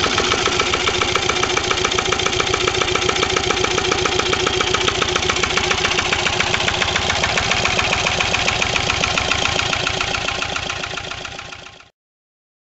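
Vintage Lister single-cylinder air-cooled diesel stationary engine running steadily, each firing stroke an even knock. The sound fades out near the end and then stops.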